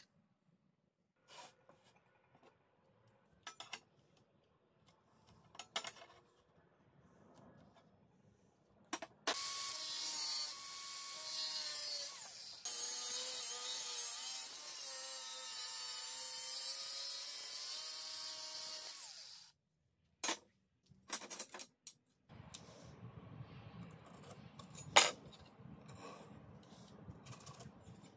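Angle grinder with a cut-off disc cutting through rectangular steel tube for about ten seconds, a loud steady whining cut that dips briefly partway through. Before it come scattered light clicks of metal parts being handled, and after it small knocks, a low rustle and one sharp click.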